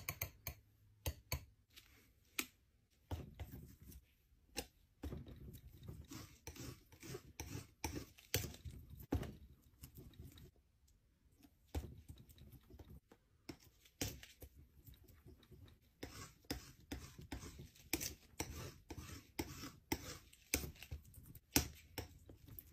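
Palette knife mixing thick paint on a palette and spreading it on paper: faint, irregular scrapes and clicks of the blade.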